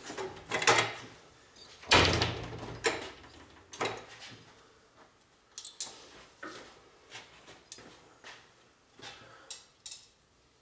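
Scattered clicks and clanks of hand tools and small metal hardware being handled, with a louder knock about two seconds in.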